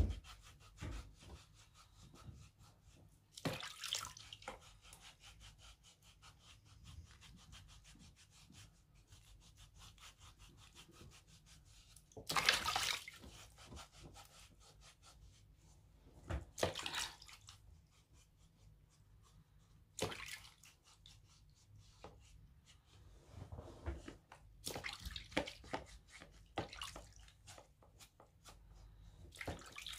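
Pumice stone scrubbing the sole of a wet foot in a basin of water: fast, rasping rubbing strokes, with louder bursts of water sloshing every few seconds.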